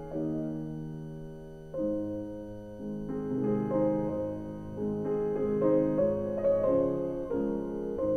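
Background music on piano: a held chord fading away, then a slow melody of notes and chords that come more often from about three seconds in.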